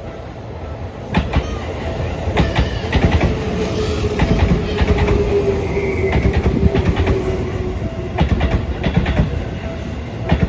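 Electric commuter train passing close by, its wheels clacking over the rail joints in quick groups, with a drawn-out whine that slowly falls in pitch.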